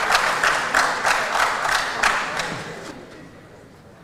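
Audience clapping, the claps falling into a quick steady rhythm of about four a second, then dying away near the end.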